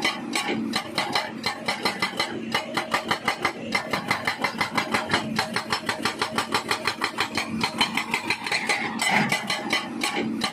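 Hydraulic breaker hammer on a Hitachi ZAXIS excavator pounding rock in a rapid, even run of blows, several a second, over the hum of the excavator's engine, with a few brief pauses.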